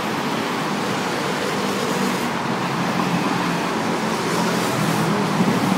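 Steady road traffic noise from a busy multi-lane city road, with cars, taxis, motorcycles and buses driving past.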